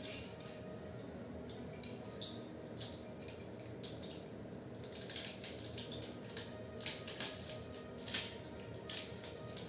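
Irregular metallic clinks and knocks of metal pieces being handled, a dozen or so scattered over several seconds, over a steady low background that may be music.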